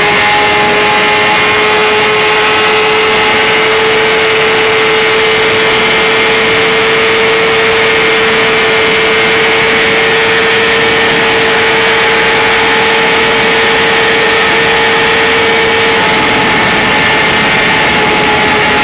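2010 BMW S1000RR's inline-four engine held at full throttle high in the rev range near top speed. Its steady high note climbs slowly and eases back slightly near the end, under a loud, even rush of wind noise.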